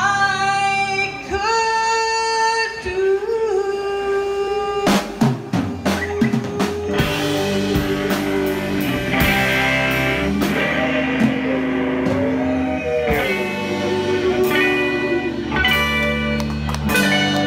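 Live rock band: a woman singing into a microphone over electric guitar and a drum kit. The first few seconds are long held sung notes, and the drums come in hard about five seconds in and keep a beat under the singing.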